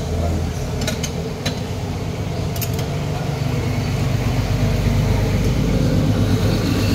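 A few light metal clinks of a ladle and wire strainer against a stainless steel soup pot in the first three seconds, over a steady low rumble that grows louder in the second half.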